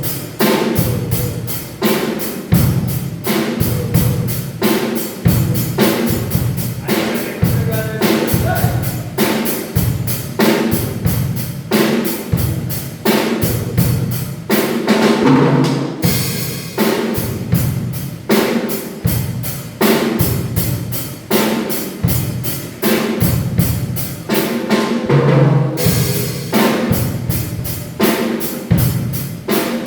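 A drum kit played in a steady, fast beat of evenly spaced hits, with short fills on lower drums about halfway through and near the end.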